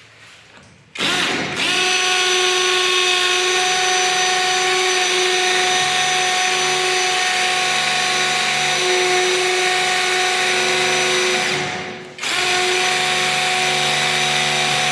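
Tanzu cordless impact drill running at steady full speed with a steady whine. It starts about a second in, stops briefly near twelve seconds and starts again.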